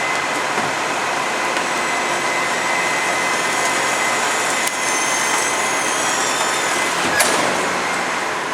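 HEIL Formula 4000 rear-loader garbage truck running steadily with its hydraulic compactor working, with thin high squeals in the middle and a sharp knock a little over halfway through and another near the end.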